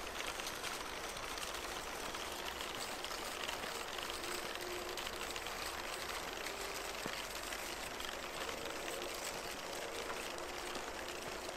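The small electric drive motor and 3D-printed gears of an RC snowmobile whirring faintly as it crawls slowly over snow, with a thin whine that comes and goes over a steady hiss.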